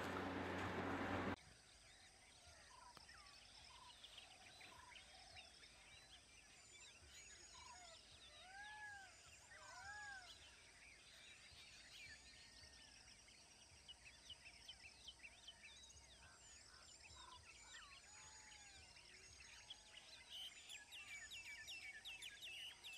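An auto-rickshaw's engine running as it drives past, cut off suddenly about a second and a half in. After that, faint birdsong: many short chirps and whistled calls, with two louder arching calls around the middle.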